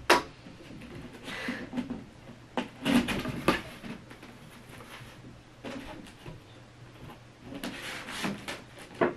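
Large cardboard figure box being handled and opened by hand: cardboard sliding and scraping, with rustling and a few sharp knocks as it is lifted and its flap is opened. A sharp knock comes right at the start.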